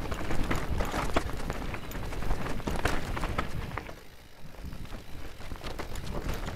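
Mountain bike rolling fast down a rough dirt trail: tyres rattling over stones and roots, with frequent clicks and knocks from the bike, over a low rumble of wind on the action camera's microphone. It goes quieter for a moment about four seconds in, then picks up again.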